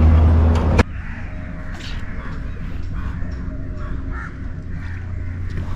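A loud rush of small fish tipped out of a bucket onto a plastic sheet, cut off abruptly less than a second in. Then short bird calls repeat every second or so over a low steady hum.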